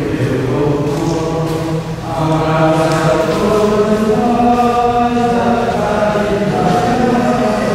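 Benedictine monks chanting together, a slow line of men's voices held on long notes that step from one pitch to the next.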